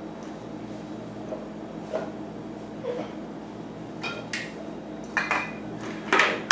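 Small metal bicycle drivetrain parts clinking and clattering, with a few faint clicks at first and then sharper, ringing metallic clatters in the last two seconds.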